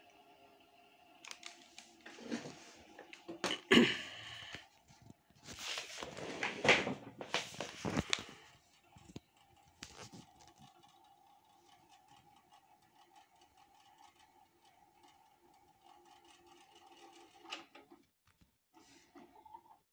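Knocks and rustling for the first several seconds, then the Panasonic NV-HD670 VHS recorder's tape transport giving a steady whir as it rewinds the tape, which stops a couple of seconds before the end.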